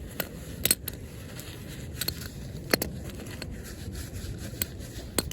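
Socket-wrench tools being handled and wiped clean of oil: a few sharp clicks and knocks with light scraping, over a steady low background noise.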